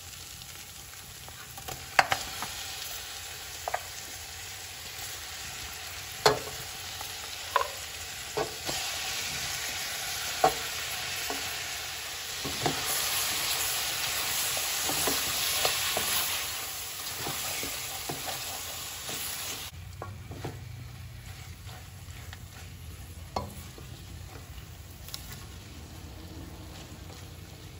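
Raw lamb pieces sizzling in hot oil and fried seasoning in a metal pot, turned with a silicone spatula, with several sharp knocks in the first ten seconds or so. The sizzle swells louder in the middle, then settles to a lower fry after about twenty seconds.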